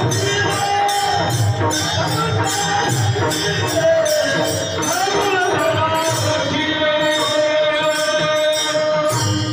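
Men singing a devotional abhang in chorus, with small brass hand cymbals (taal) struck together in a steady rhythm and a two-headed barrel drum (mridang) played beneath; the singing ends on a long held note.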